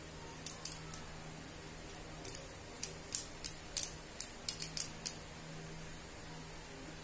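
About a dozen sharp, light metallic clicks and clinks, some in quick pairs and threes, as small steel parts of a National 12V cordless drill's quick-release bit chuck are handled and fitted together. They start about half a second in and stop about five seconds in.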